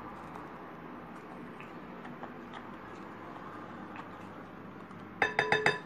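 Faint stirring of a thin liquid mixture in a glass bowl, then near the end a quick run of about five taps of the spatula against the glass bowl, each giving a short ringing clink.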